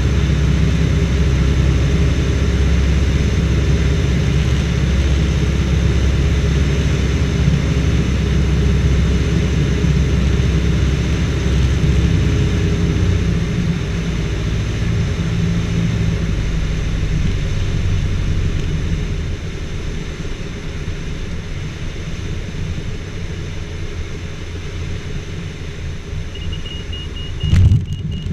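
Robin DR221 light aircraft's engine running at idle in the cockpit while its wheels rumble over grass during the landing roll. The rumble gets quieter in steps as the aircraft slows, with a few sudden louder bumps of noise near the end.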